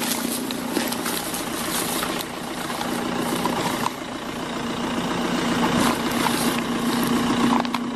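A vehicle engine idling steadily, with scattered small clicks over it.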